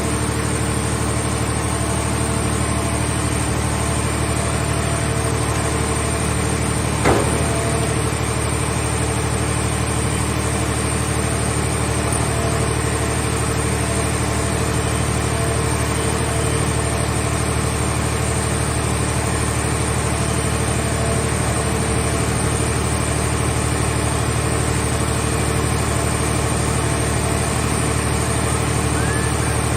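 Mobile car-body baler's engine and hydraulic power unit running steadily, a constant machine hum, with one sharp knock about seven seconds in.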